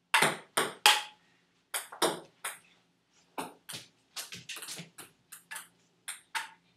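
Table tennis ball clicking off paddles and the table in a rally: a few sharp, loud ticks, then a run of lighter, quicker ticks from about three and a half seconds in.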